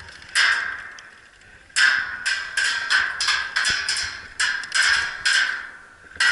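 Airsoft guns firing a string of single shots, about a dozen sharp cracks in six seconds at an irregular pace, bunched together in the middle.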